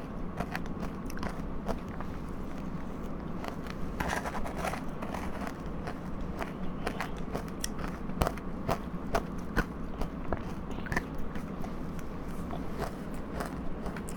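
Biting and chewing powdery ice close to the microphone: a steady run of soft crunches and crackles, with a few sharper cracks about four and eight seconds in.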